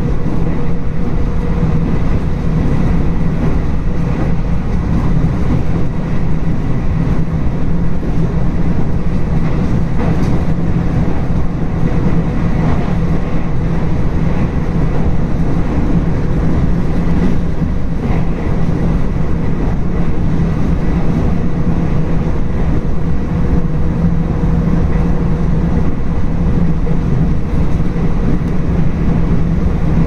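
Local train running steadily along the line, heard from inside at the front: a continuous rumble of wheels and running gear on the rails, with a low hum and a few faint ticks.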